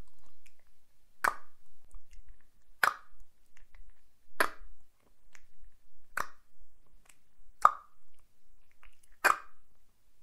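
A woman clicking her tongue against the roof of her mouth, one sharp click about every one and a half seconds, six times, in a slow even rhythm.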